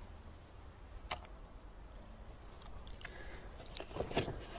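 Handling noise: a single sharp click about a second in, then a cluster of knocks and rustling as a hand grips a cardboard target board near the end, over a steady low rumble.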